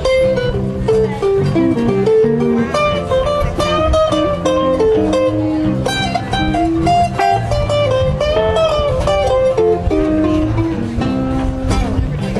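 Live band playing an instrumental break in a rock song, with a guitar carrying a melodic lead that has several bent notes over the band.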